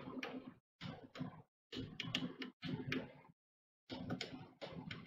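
Clicking of the ANET A2 3D printer's LCD control knob being turned and pressed through its menus. The clicks come in short runs with brief silences between them, over a faint hum.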